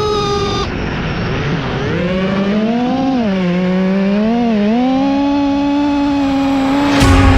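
A motor running at high revs with a strong pitched note that swings up and down. Near the end there is a sharp crack and heavy bass music comes in.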